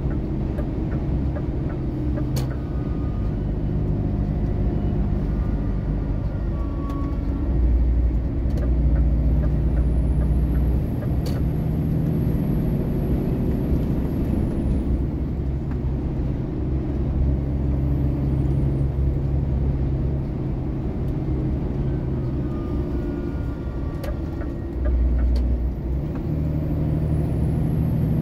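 Engine and road noise inside the cab of a heavy vehicle cruising on a highway: a steady low drone whose pitch and strength shift every few seconds, with a few faint clicks.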